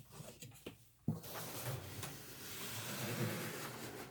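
A large diamond-painting canvas and its cover paper rustling and sliding as they are handled. After a few faint clicks, a steady rushing starts suddenly about a second in and continues.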